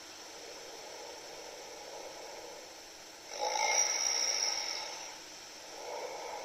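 A sleeping man snoring lightly while wearing a Breathe Right nasal strip: one snoring breath about three seconds in that lasts well over a second, and a softer one near the end, with a steady hiss between.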